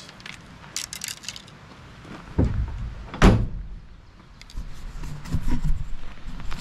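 A few light clicks, a thump and then one loud slam a little over three seconds in, followed by low rumbling and knocking, like gear being handled and a door or lid shut.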